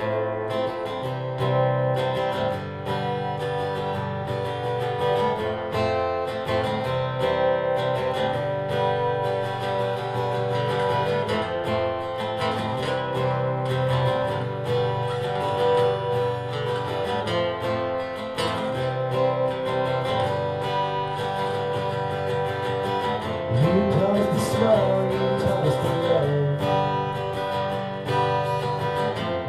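Acoustic guitar music: steady strumming and picking of chords. A short gliding melodic line rises and falls over it near the end.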